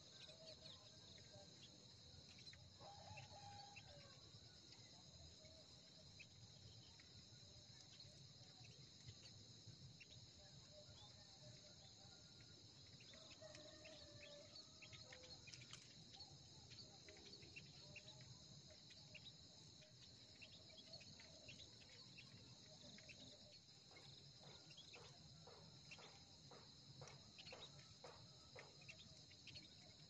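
Faint, steady high-pitched chorus of insects in grass, with scattered short chirps that come thicker near the end.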